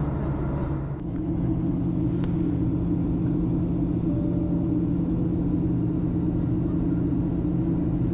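Steady in-flight cabin drone of a Boeing 737-800, engine and airflow noise heard from a window seat over the wing, with a constant low hum. The tone of the drone shifts slightly about a second in.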